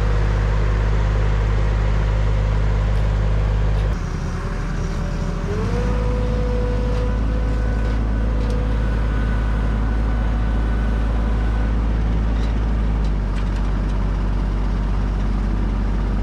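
Can-Am ATV engine being turned over on its starter with the plug removed, pushing water out of the flooded cylinder. The cranking breaks off about four seconds in and picks up again with a rising whine, then runs steadily.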